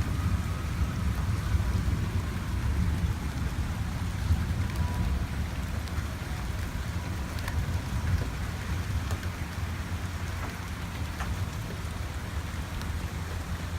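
Steady rain during a thunderstorm, with a continuous low rumble underneath and scattered sharp drop clicks.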